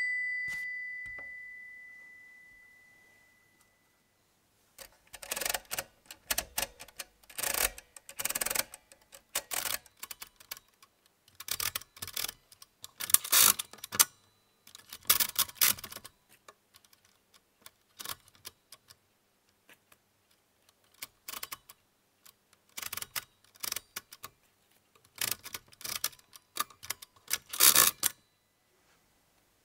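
Walther WSR 160 hand-cranked mechanical calculator being worked to add two numbers: clusters of sharp clicking and ratcheting from its crank and setting levers, coming in bursts with pauses between. A ringing tone fades out over the first couple of seconds.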